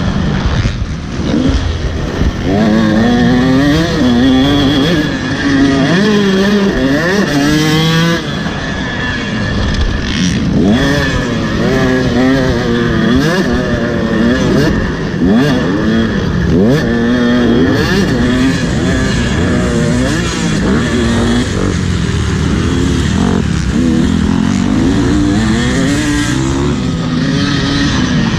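Motocross bike's engine revving up and down as it is ridden, its pitch climbing and dropping again every second or two, over a constant low rumble.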